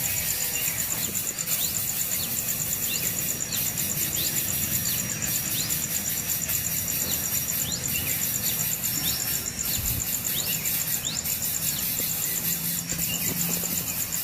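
A steady high insect trill with short bird chirps repeating about twice a second over it.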